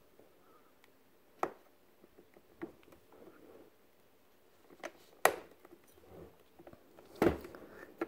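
Knife blade prying and scraping at a stuck plastic screw cap on a drip coffee maker's plastic housing, with about five sharp clicks and knocks as the blade slips and catches.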